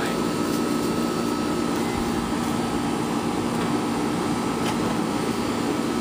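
Microwave oven running: a steady electrical hum with fan noise.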